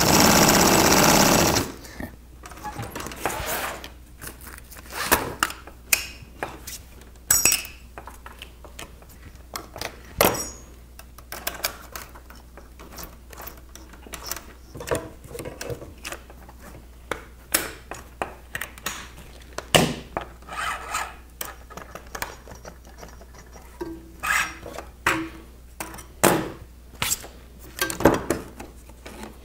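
Industrial sewing machine stitching fast for about a second and a half, then stopping abruptly. After that, scattered sharp clicks and taps of canvas and parts being handled at the machine, with scissors snipping thread near the end.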